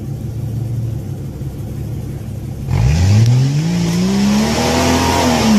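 Off-road SUV's engine running low, then revving hard about halfway through as it climbs a steep rock slab. The pitch rises, holds and starts to fall near the end, under a loud rushing hiss.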